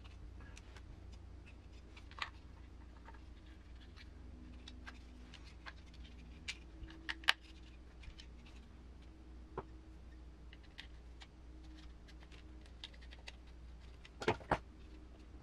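Scattered light clicks and taps of small parts and tools being handled while assembling an RC crawler transmission, with two sharper clicks close together near the end.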